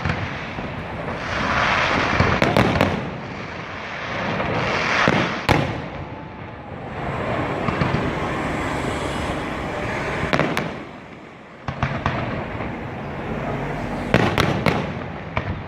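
Fireworks display: sharp bangs of shells bursting, a few in quick succession about two and a half seconds in, more around five seconds and ten seconds in, and another cluster near the end, over a continuous rushing crackle between the bursts.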